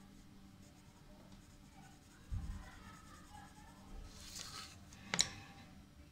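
Graphite pencil scratching lines onto paper, faint and intermittent, with a soft knock about two seconds in and a sharp click about five seconds in.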